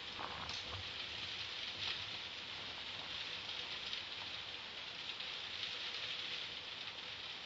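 Typhoon rain falling steadily: an even hiss, with a few sharper drop or splash ticks standing out here and there.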